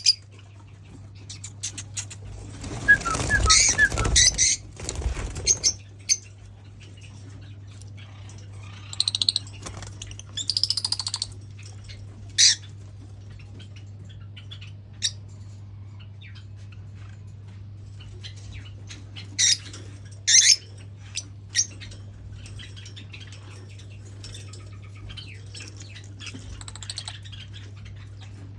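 Pet lovebirds chirping and squawking in short, scattered bursts of high-pitched calls, with a louder rustling, flapping stretch about three seconds in. A steady low hum runs underneath.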